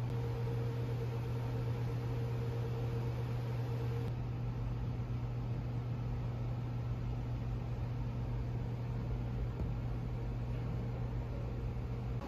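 Steady low mechanical hum of indoor room tone, with a fainter higher tone that stops about four seconds in.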